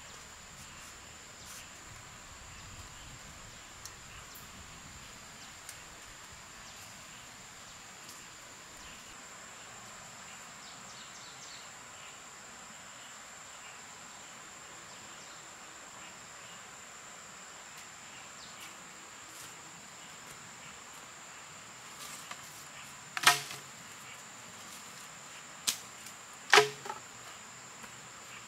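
Quiet forest ambience with a steady high-pitched insect drone. In the last few seconds come three sharp knocks, the last two less than a second apart.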